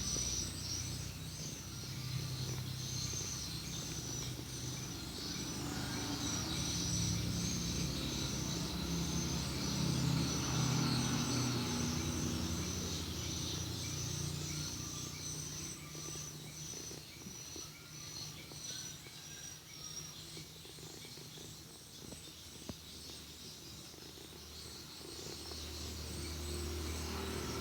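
Feral kitten purring: a low, finely pulsing rumble that swells in the middle and fades toward the end. High, rapidly repeated chirping runs in the background and stops about two-thirds of the way through.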